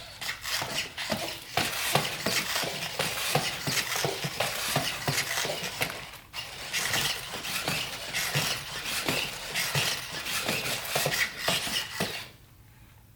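Sony Aibo ERS-7 robot dog walking: its hard plastic feet clatter and tap in quick succession over the whirr of its leg joint motors, with a brief pause about halfway. Some of its joints are noisy.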